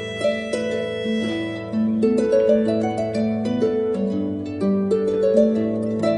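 Background harp music: a melody of plucked notes, each ringing on, over sustained low bass notes.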